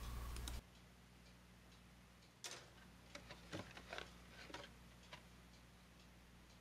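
Near silence, broken by a handful of faint, short clicks as plastic model-kit sprues and parts are handled in their box.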